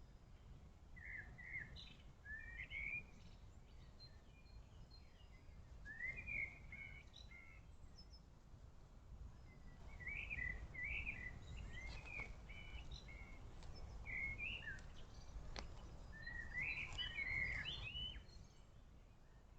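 Small songbirds chirping and singing in short repeated phrases, in several bursts, over a low steady rumble of background noise.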